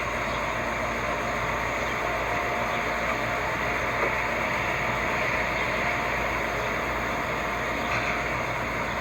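A vehicle running steadily: an even, unchanging engine noise with a constant rush over it.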